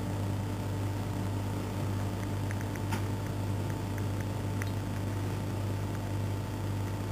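Steady low mechanical hum with a fainter high tone over it, and a few faint ticks about three seconds in.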